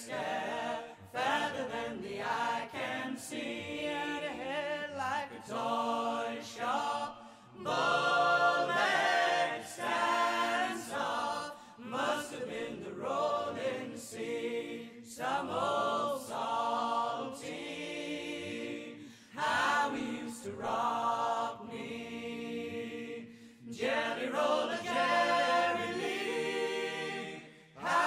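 Unaccompanied folk song sung by several voices in close harmony, phrase after phrase with short breaths between.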